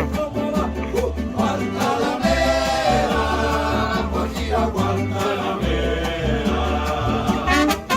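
A song with a singing voice over a bass line.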